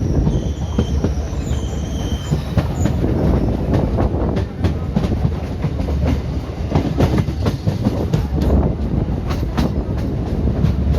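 ICF passenger train running on the rails: a steady low rumble of wheels and coaches with irregular clicks and clatter over the track. Thin high wheel squeal comes and goes in the first couple of seconds.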